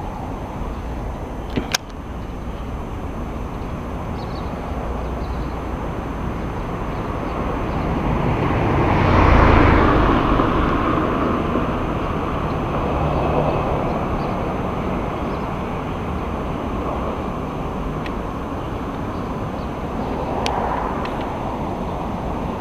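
Steady street traffic noise, with a vehicle passing close by that swells and fades about nine to ten seconds in, and a single sharp knock near the start.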